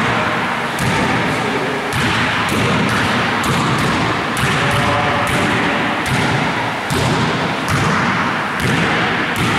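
Basketballs thumping, irregular sharp impacts about one to two a second as the ball is passed, bounced off the floor and caught, over a steady background hiss.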